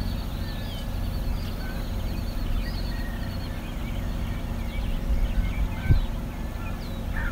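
Birds chirping and calling at dawn in short, scattered calls, over a steady low rumble.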